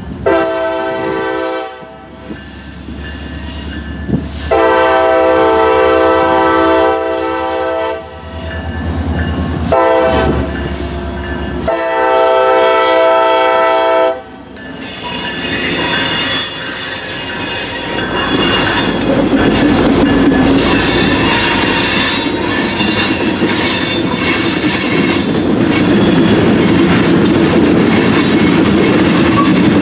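A CSX diesel locomotive sounds its chord horn in a series of blasts at a road grade crossing, two of them long, over the low rumble of its engine. After the last blast, about 14 s in, the locomotive and a string of covered hopper cars roll past with steady wheel and rail noise and clickety-clack over the rail joints.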